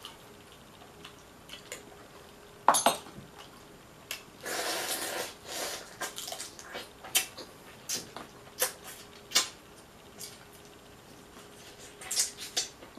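Eating sounds at a seafood boil: a spoon clinks sharply against the plate a little under three seconds in, then a second-long wet noise and a run of sharp wet mouth smacks and clicks as boiled crab is eaten by hand.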